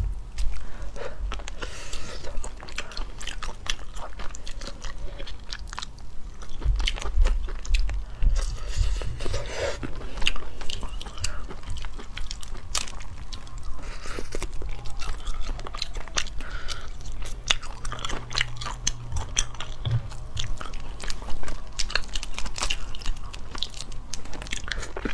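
Shells of boiled crayfish crackling and snapping as they are cracked and peeled apart by hand, with many small sharp crackles in quick, uneven succession.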